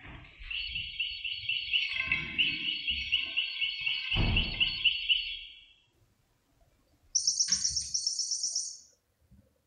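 Rapid, evenly pulsed bird-like chirping trills: a long lower trill lasting about five seconds, then after a short pause a higher, shorter one. A dull thump comes about four seconds in.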